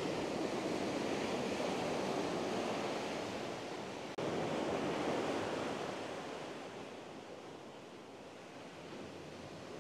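Pacific surf washing onto the beach, a steady rush of waves. It is louder in the first half and fades away after about six seconds.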